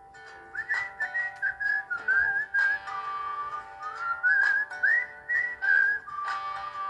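Mobile phone ringtone playing: a whistled melody gliding between notes over steady held chords.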